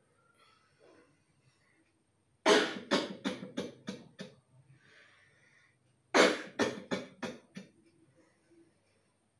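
A person coughing in two bouts of rapid coughs: about seven coughs starting a couple of seconds in, then about five more about four seconds later.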